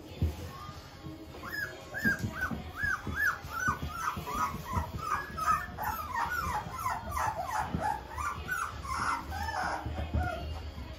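Five-week-old miniature poodle puppies whining and squealing as they crowd around their mother: a rapid string of short, high rising-and-falling cries starting about a second and a half in, densest through the middle and thinning out near the end.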